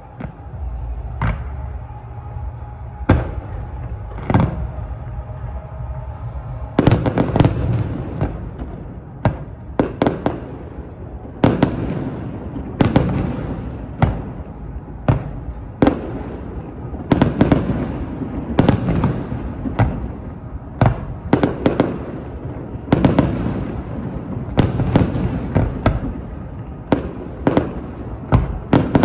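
Aerial fireworks bursting: a few single bangs spaced a second or two apart, then from about seven seconds in a rapid barrage of many overlapping bangs, each trailing off in a rumbling echo.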